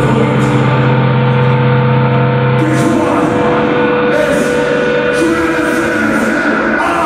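Loud, droning live black metal: sustained, ringing chords and held notes in a reverberant hall, the held notes changing about three seconds in.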